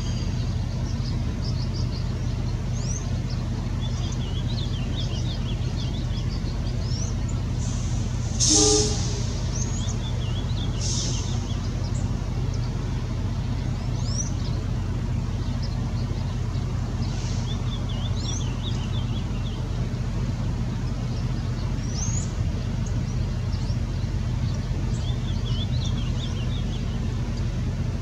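Ultramarine grosbeak (azulão) singing: short phrases of quick, high, rising notes every few seconds, over a steady low rumble. A brief louder sound comes about eight and a half seconds in.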